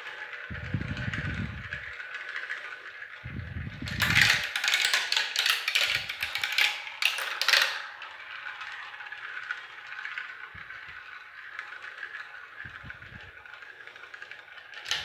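Several marbles rolling together through a plastic marble run, making a steady rolling rattle. A busier run of clicks and knocks comes from about four to eight seconds in. A few low thumps come in the first few seconds.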